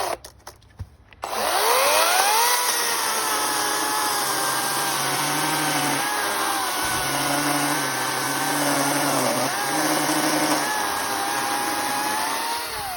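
Ego CS1800E battery chainsaw: a brief trigger blip, then the electric motor spins up with a rising whine and runs steadily as the chain cuts through dry, hard camphor laurel, its pitch sagging now and then under load. It winds down near the end.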